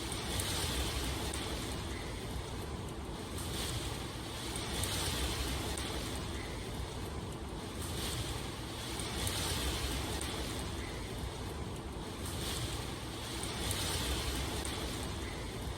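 Steady rushing water noise that swells and eases every few seconds.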